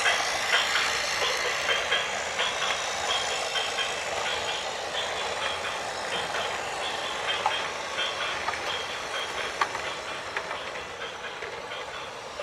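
Heavy-vehicle and traffic noise with many short, irregular high beeps.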